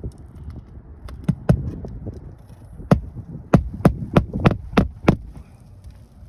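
Hammer driving roofing nails through an asphalt shingle into the roof deck: two blows about a second in, one more near three seconds, then a run of six strikes at about three a second.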